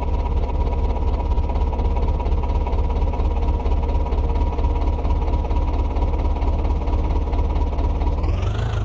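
Diesel tractor engine running steadily with a fast, even pulsing rumble, its pitch rising and falling back once near the end as it is briefly revved.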